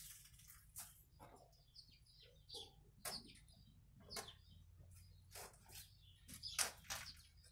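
Faint scattered rustles and scrapes of electrical wire being fed by hand into a metal conduit.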